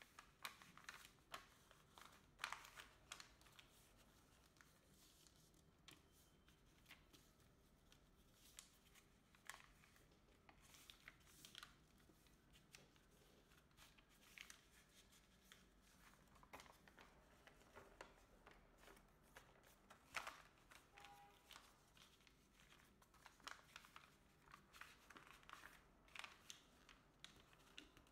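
Faint rustling and crinkling of a sheet of thin coloured origami paper as it is folded and pressed into creases by hand, in scattered short crackles.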